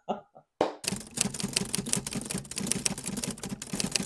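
A rapid, dense clatter of clicks, like typewriter keys, played as a sound effect over a segment title card. It starts about a second in and runs on steadily.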